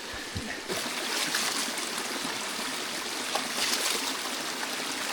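Water running and trickling steadily, louder from about a second in.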